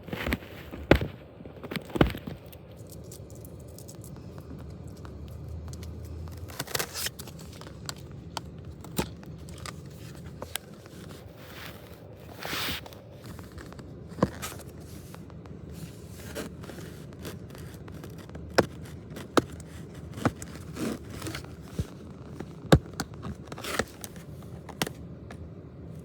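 A mail package being handled and opened: scraping and tearing of packaging, with scattered sharp clicks and taps and a few short rustling bursts.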